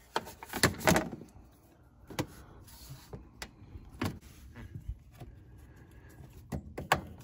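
Scattered knocks, clicks and clatter of plastic and metal as the engine access cover on a Kawasaki Mule SX utility vehicle is handled and set back in place. There are about eight sharp knocks, the loudest about a second in and near the end.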